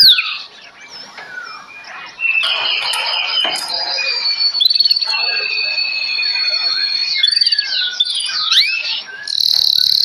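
Several caged songbirds singing and calling together: a changing mix of chirps and whistles, with long held high notes through the middle, a rising whistle a little before the end and a high buzzing trill at the very end.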